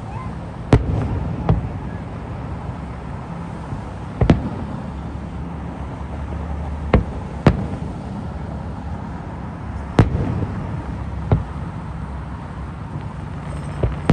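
Distant aerial firework shells bursting: about eight sharp bangs at irregular intervals, from under a second to nearly three seconds apart.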